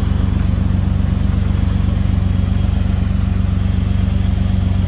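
An engine idling steadily: a low, even pulsing drone.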